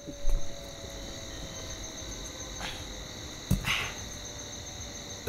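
Crickets chirring in a steady, continuous high chorus. A low thud comes about a third of a second in, and a sharp knock a little past halfway.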